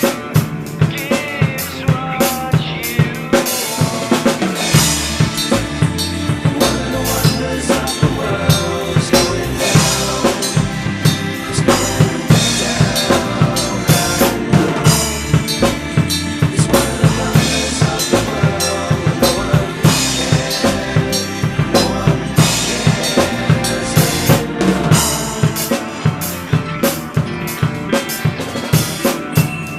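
Rock drum kit played along with a full-band recording, with kick, snare and rimshot hits on a steady groove over guitars and other pitched instruments.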